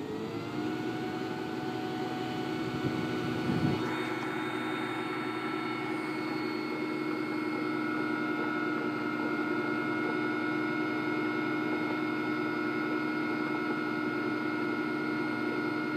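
High-output alternator for an older Toyota Celica spinning at about 2,000 RPM on a belt-driven test bench, a steady whine of several tones under a heavy electrical load of roughly 160 to 180 amps. The pitch settles slightly lower at the start, and a higher tone joins about four seconds in.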